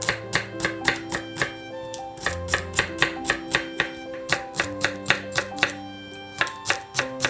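A kitchen knife chopping steadily on a cutting board, about three to four cuts a second with a couple of short pauses, over background acoustic guitar music.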